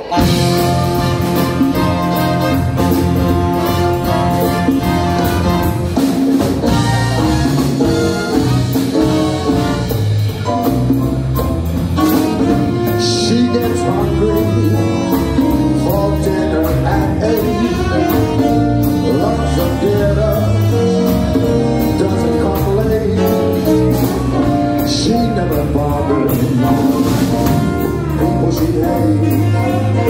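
Live swing big-band combo playing a jazz number: saxophones, trumpet and trombone over drum kit, upright bass and keyboard. The band comes in together on a sudden loud start.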